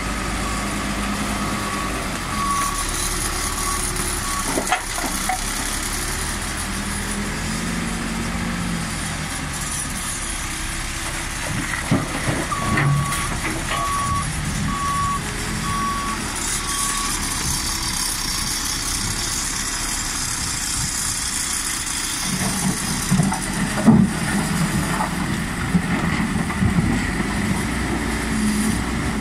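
Fiat Kobelco backhoe loader's diesel engine running steadily as the machine works, while a reversing alarm beeps for the first few seconds and again for a few seconds in the middle. Clanks and knocks from the machine come near the middle and later on.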